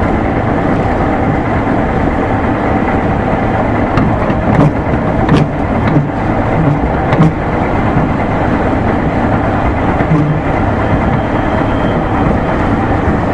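205 series electric train running at speed: a loud, steady rumble of wheels on rail and running gear, with a few short louder clunks scattered through.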